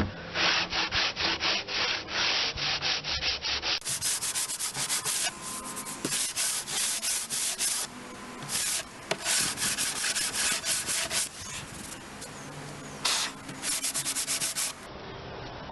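Drywall hand sander with 120-grit sandpaper being worked back and forth over dried wood putty on an oak door: quick, even rasping strokes, about three a second, with a few short pauses.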